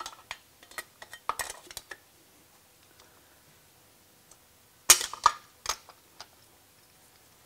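Light metallic clinks and taps of a radiator brace's inner metal plate being worked into place between a motorcycle radiator and its frame. A scatter of small clicks comes first, then a louder cluster of three or four clinks about five seconds in.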